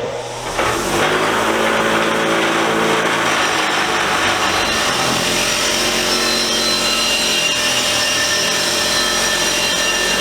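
Motor-driven wire wheel running with a steel adjustable wrench held against it to clean it, a steady harsh scraping over the motor's hum. It gets loud about half a second in as the wrench meets the spinning wheel.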